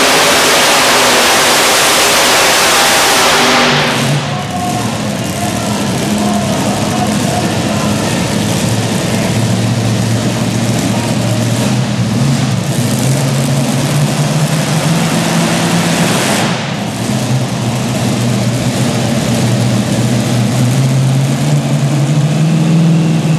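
Multi-engine supercharged modified pulling tractor running flat out under load, a loud full-range roar that cuts back about four seconds in. For the rest it runs at low speed with a steady, lower engine drone.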